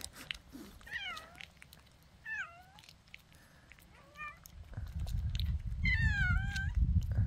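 A cat meowing four times in short, bending calls, the last the longest and loudest. It is a stray cat waiting its turn for a lickable cream treat. From about halfway a low rumble joins in.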